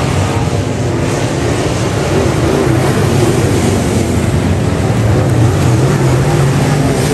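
Engines of several dirt modified race cars running hard around a dirt oval, their pitch rising and falling over and over as they go through the turns.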